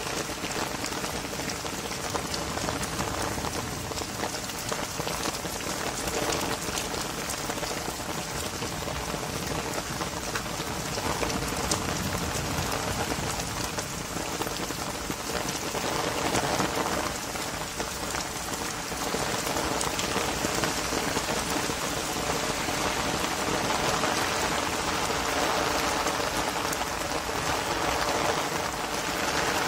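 Heavy rain pouring onto pavement and a wet road, a dense, steady hiss of rain.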